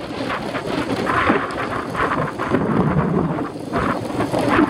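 Rain and wind on a bicycle-mounted action camera while riding a wet road: an uneven rushing noise with many scattered taps of raindrops hitting the camera.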